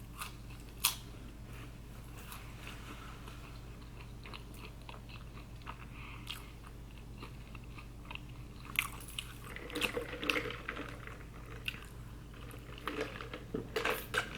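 A person chewing and biting food: scattered soft mouth clicks and small crunches, which come thicker and louder from about two-thirds of the way through.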